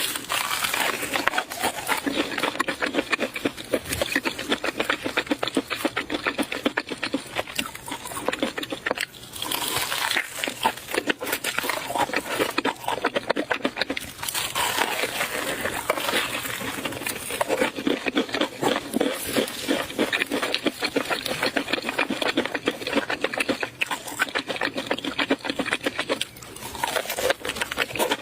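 Close-miked eating sounds: rapid wet chewing and smacking of the mouth, going on almost without a break, with a few short pauses.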